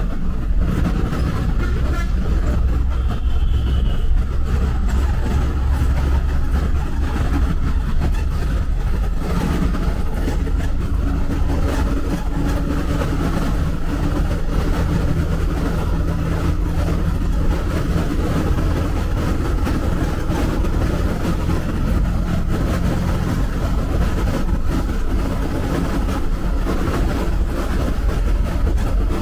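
A bus driving on a highway: its engine runs and its tyres rumble in a loud, steady drone. The engine's tone becomes clearer about nine seconds in and shifts slightly in pitch.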